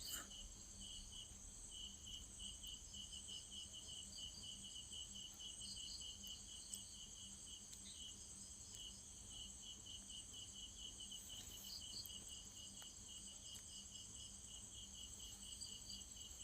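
Faint background insects chirping steadily, at about four chirps a second, over a continuous high-pitched insect trill.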